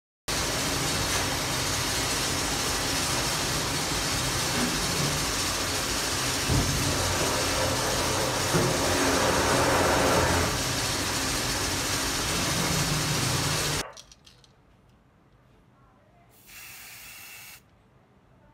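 Loud, steady hiss with no rhythm of file strokes in it, cutting off suddenly about fourteen seconds in. A few seconds later comes a single short spray from an aerosol paint can, about a second long.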